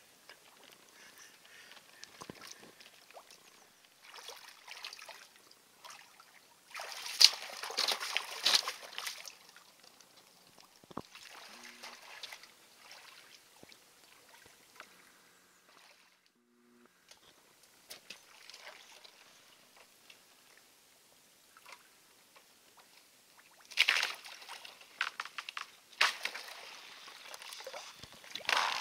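Rubber boots wading through shallow icy pond water and broken ice: water sloshing and splashing in bursts, loudest about seven to nine seconds in and again in several sharp splashes near the end.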